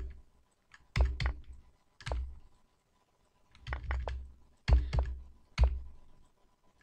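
Computer keyboard keys tapped in single presses and short runs of two to four, each with a dull knock, spread a second or so apart.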